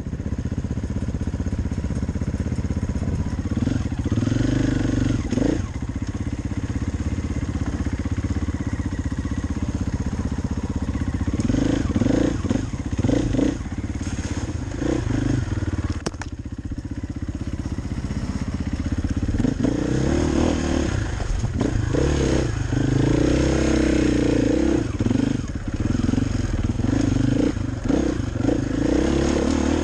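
Dirt bike engine running under a helmet-mounted camera, rising and falling with the throttle along a trail, with scattered knocks and clatter. The engine eases off briefly a little past halfway.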